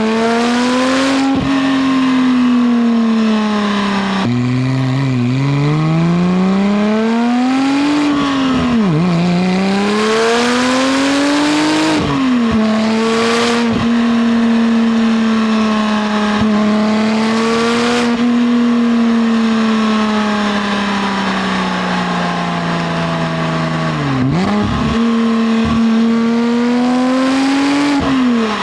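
Porsche 996 Turbo's twin-turbo flat-six running through a SOUL valved high-flow catted exhaust and sport headers while driving. The engine note climbs and drops sharply at each gear change, five times in all. Between the second and fourth changes it holds a steady pitch for about ten seconds at cruise.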